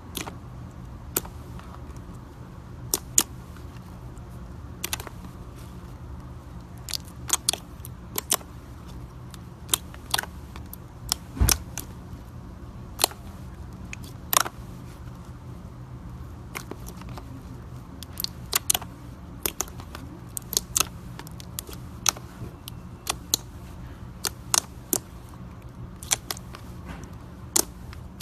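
Scattered sharp clicks and snaps at uneven intervals over a steady low hum, as of objects being handled.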